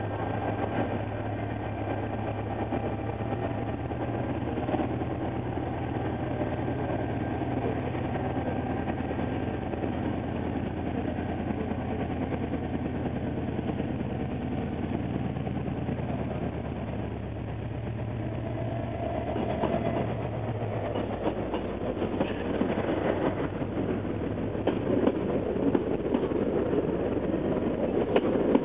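Irish Rail 071 Class diesel locomotive's EMD two-stroke engine running with a steady low drone, its exhaust smoking. About two-thirds of the way through the drone fades and a rising rumble and rattle of carriage wheels over the track takes over as the passenger carriages come close alongside.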